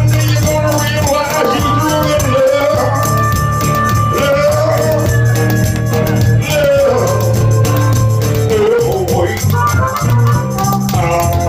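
Live band music with a pair of spoons clacked in a fast, dense rhythm against a held chordal backing and a wavering lead melody.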